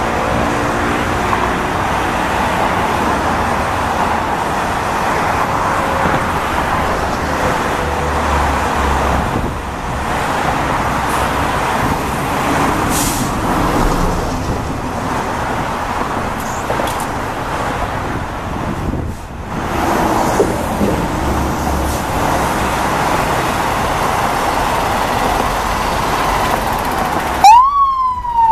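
A Ferrara Ultra fire engine's diesel running steadily as the truck pulls out of the firehouse bay. About a second before the end, its electronic siren starts, its pitch rising and then falling.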